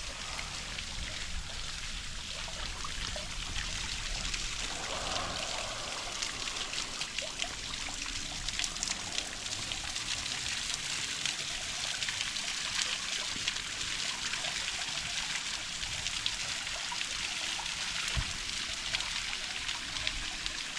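Small waterfall trickling and splashing steadily, a fine patter of drips over a constant hiss of running water.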